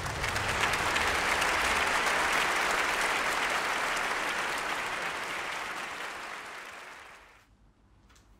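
Audience applause, steady at first and fading out about seven seconds in.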